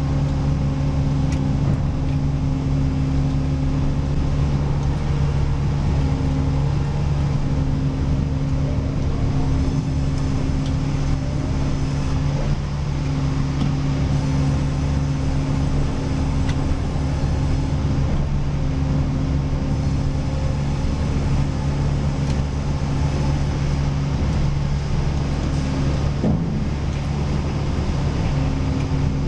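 Sawmill machinery running with a steady engine drone. A higher hum in it breaks off briefly every five or six seconds.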